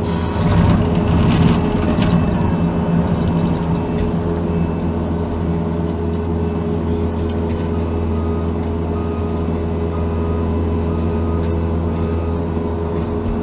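Case TV450 compact track loader's diesel engine running steadily, heard from inside the cab, with a louder stretch of noise and clatter in the first two seconds.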